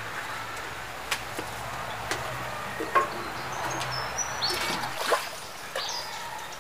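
Scattered sharp knocks and clicks, the loudest about three seconds in, as a metal watering can and a small bowl are handled, with a few short high bird chirps in the second half.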